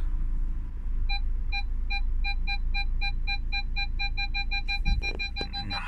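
Vehicle parking sensor beeping, the short electronic beeps starting about a second in and coming faster and faster as the van closes on the vehicle beside it, almost continuous near the end. A low engine rumble runs underneath.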